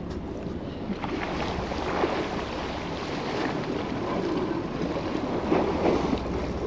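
Wind and choppy sea water slapping around a fishing boat: a steady rush with a constant low rumble underneath and irregular splashes.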